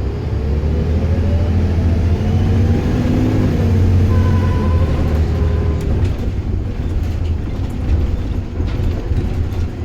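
Bus engine pulling under load with a heavy low rumble, its whine rising in pitch for about four seconds and then levelling off. Short rattles come in the second half.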